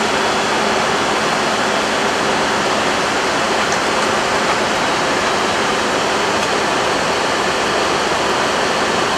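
Steady rushing noise inside an Airbus A320 cockpit during the climb after takeoff: airflow over the nose and the cockpit ventilation, with a faint high whine.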